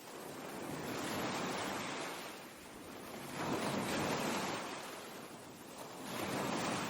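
Ocean surf: waves washing in, the noise swelling and fading three times, about every two and a half seconds.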